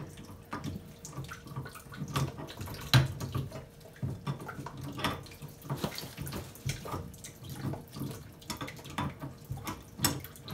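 Irregular small metal clicks and knocks as a crescent wrench turns a threaded fitting on a water supply pipe at the wall.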